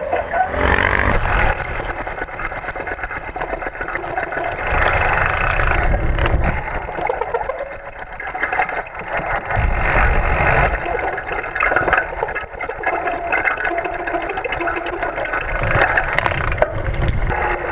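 Mountain bike disc brakes grinding metallically and rattling under braking, over the rumble of the bike rolling. The grinding swells and eases every few seconds as the brakes are applied.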